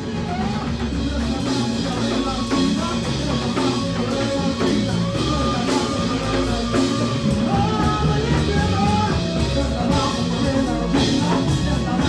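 Rock-style music with drums, guitar and singing.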